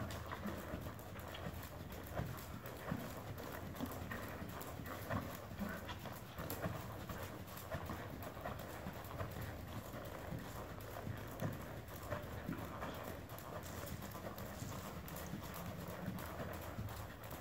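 Horse trotting on the sand footing of an indoor arena: a steady run of hoofbeats.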